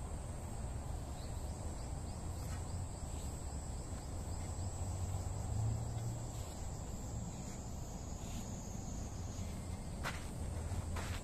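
Loose soil being scraped and pressed back by hand over a trench where a buried robot-mower guide wire was repaired. A steady high insect drone and a low rumble run beneath. About ten seconds in, a few quick knocks as shoes step onto the soil to firm it down.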